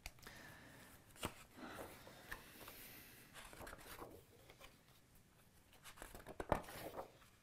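Pages of a hardcover picture book being turned one after another: soft paper rustling with a few sharp page flaps, the loudest near the end.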